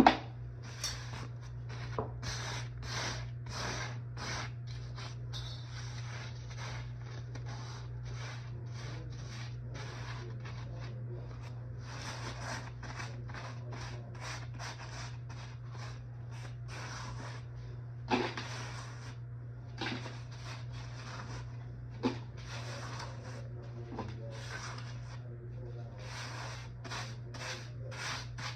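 Repeated rubbing and scraping strokes, dozens of them, over a steady low hum, with a few sharper knocks, the loudest near the start.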